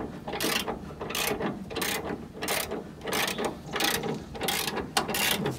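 Hand ratchet wrench clicking in repeated short strokes, about two a second, while front crossmember bolts are run in.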